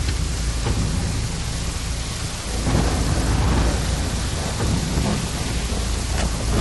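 Heavy rain pouring down, with a deep rumble of thunder that swells about two and a half seconds in.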